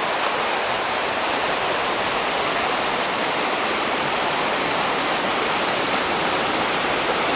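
Steady, even rush of flowing water, like a stream or waterfall, with no breaks or changes.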